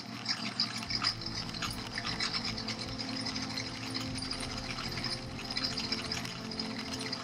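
Ride noise from a camera mounted on the back of a motorbike: a steady buzzing engine hum with rattling and fine ticking from the vibration.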